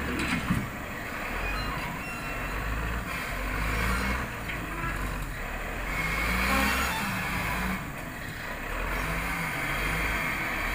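Caterpillar wheel loader's diesel engine working under load, its note rising and falling as the log grapple lifts logs off a truck trailer, with a hiss about six seconds in.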